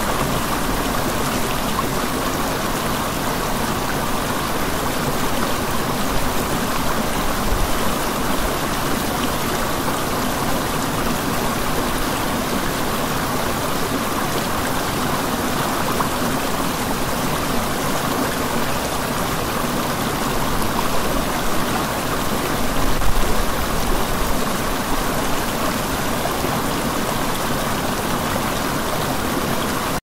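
Steady rush of a flowing stream, an even water sound with no breaks.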